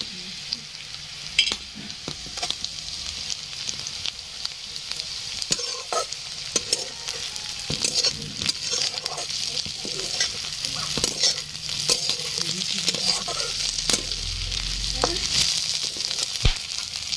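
Small fish and sliced onions sizzling in hot oil in a kadhai, with a steady hiss throughout, while a metal spatula stirs them, scraping and clicking against the pan.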